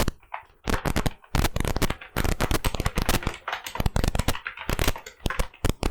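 Computer keyboard typed on rapidly, keys clattering in quick runs broken by short pauses, as Hindi text is entered on a Remington Gail layout.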